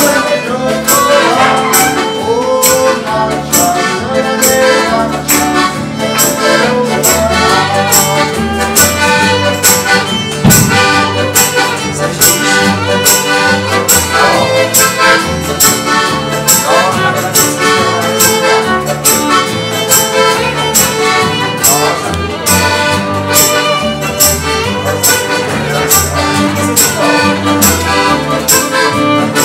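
Small acoustic folk band playing an instrumental tune together: accordion, fiddle and double bass, over a steady, even beat of short rhythmic strokes.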